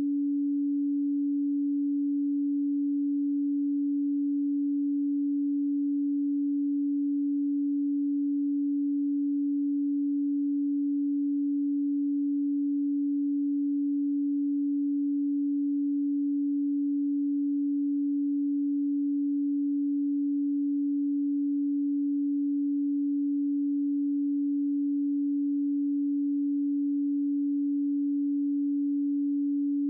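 A pure 285 Hz sine tone, held steady and unchanging at one pitch and level.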